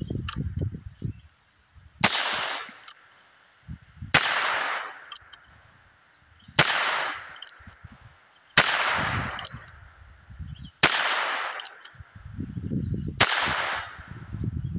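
A single-action revolver carbine fired six times, slow and deliberate, about two seconds apart. Each shot is a sharp crack with a short fading echo. Faint clicks fall between the shots as the hammer is thumbed back.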